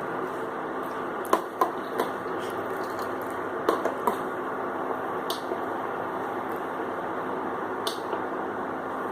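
Steady hissing of a pan of milk heating on a stove as it comes to the boil, with a faint low hum under it. Scattered sharp clinks, about eight, sound over it, two loud ones just over a second in and a cluster around four seconds.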